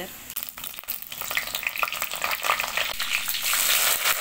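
Hot oil sizzling and crackling in a clay pot with garlic, cumin, dried red chillies and curry leaves: a tadka being made to temper dal. The sizzle grows louder in the second half.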